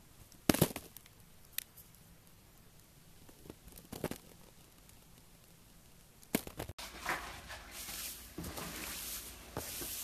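A few sharp cutting clicks as a small blade slices curls off a soft block, the loudest about half a second in. From about seven seconds, continuous crackling as a hand presses and squishes into a mass of foam beads (floam).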